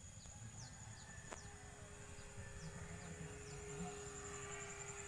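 Faint rural outdoor ambience: a steady high insect drone with short falling bird chirps repeating every so often. A faint steady low hum comes in about a second and a half in, and a single sharp click sounds just after the first second, over a low rumble on the microphone.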